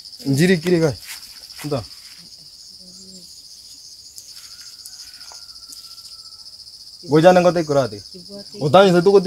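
Steady, high-pitched chorus of chirping insects with a fast, even pulse. A person's voice speaks briefly just after the start and twice near the end, louder than the insects.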